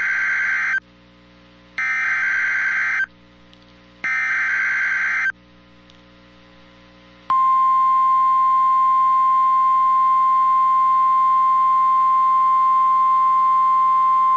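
NOAA Weather Radio emergency alert: the end of one SAME digital header burst, then two more short bursts of screechy data tones, followed about seven seconds in by the steady 1050 Hz warning alarm tone, held. The sequence announces a new warning, here a severe thunderstorm warning.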